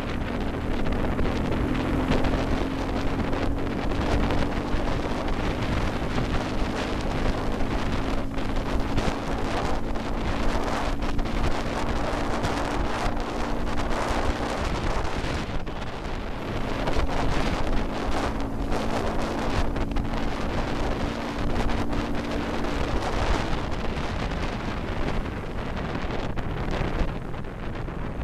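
Wind buffeting the microphone of a moving motorcycle, with the engine's steady hum underneath that creeps slightly up in pitch over the first half and returns for a while later.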